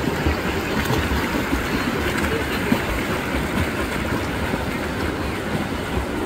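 Freestyle swimmers racing, their kicks and arm strokes churning the water into a steady rushing splash.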